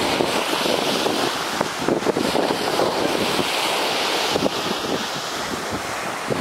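Steady rush of surf washing onto a sandy beach, mixed with wind buffeting the microphone.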